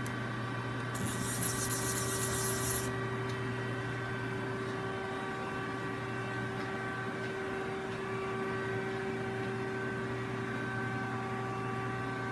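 Steady hum of a CNC turning center idling under power, with several steady tones. About a second in, a high hiss comes in for about two seconds.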